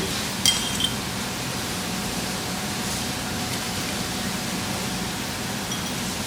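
Glass or crockery clinking: one sharp, ringing clink about half a second in, a smaller one just after, and a faint one near the end, over a steady room hum.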